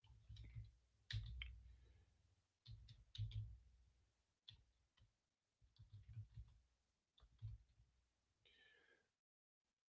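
Faint computer keyboard typing: about seven short bursts of keystrokes, clicks with dull thumps underneath, ending shortly before the close.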